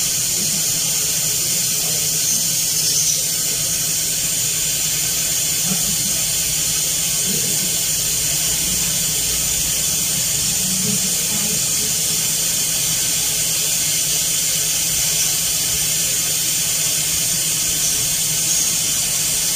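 Hot air rework station blowing a steady hiss of hot air, with a low hum underneath, as it heats an iPhone's Tigris charging IC to melt its solder for replacement.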